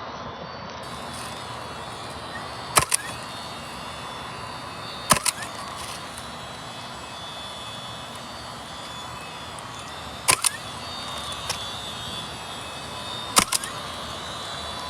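Roofing nail gun firing nails through a replacement asphalt shingle: four sharp cracks a few seconds apart, each a quick double or triple shot.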